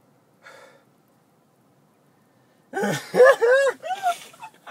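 A man's helpless, high-pitched laughter, like a hyena: a short breath, a silent stretch as he is doubled over, then nearly three seconds in a quick run of loud laughs, each rising and falling in pitch.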